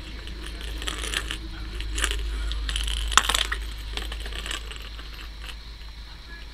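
A ball rolling and clacking around inside a plastic Crazy Circle cat track toy as a cat bats at it through the openings. There is a rattle and a string of sharp clacks, the loudest a little after three seconds in, then it settles.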